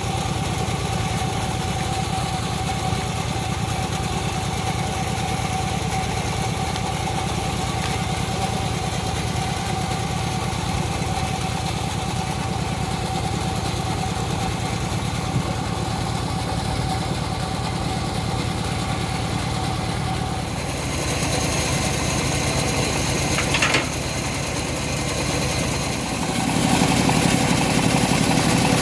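Engine-driven homemade bandsaw mill running steadily with a constant whine. About 21 seconds in the sound changes and grows louder, with a brief sharp noise near 24 seconds, and it grows louder again from about 27 seconds, as the load on the machine changes.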